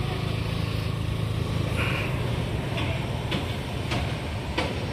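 A steady low vehicle-engine hum in the background, with a few light clicks as a plastic engine oil filler cap is twisted shut.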